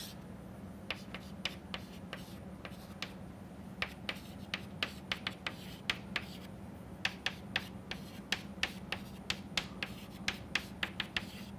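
Chalk tapping and scratching on a blackboard as equations are written: a string of sharp, irregular taps, bunched more closely in the second half, over a steady low hum.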